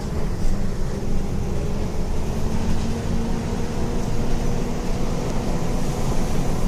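MWM 7B270 Euro 5 diesel engine of a Volvo B270F bus chassis running steadily, an even low drone with no change in speed.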